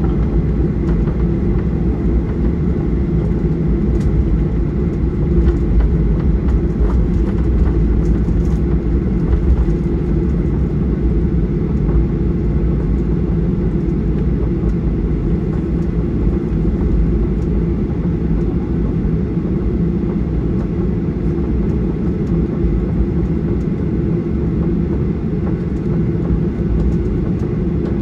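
Steady low rumble inside the cabin of a Boeing 737-800 airliner, from the engines and the aircraft in motion. It holds an even level, with no rise or fall in pitch.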